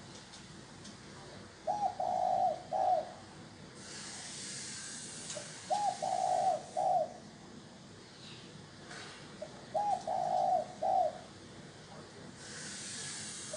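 Spotted dove cooing: three phrases about four seconds apart, each a short note, a longer held note and a short final note.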